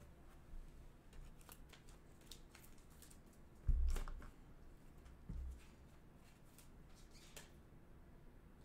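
Trading cards and a clear plastic card holder being handled: faint clicks and rustles, with a dull thump a little under four seconds in and a smaller one about a second and a half later.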